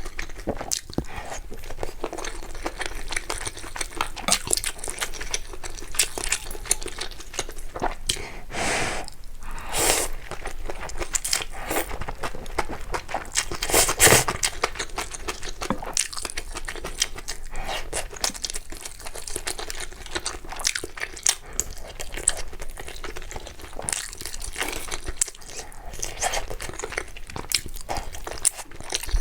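Close-miked eating sounds: crunchy bites and chewing with many sharp mouth clicks, and two longer rushing sounds around 9 and 14 seconds in.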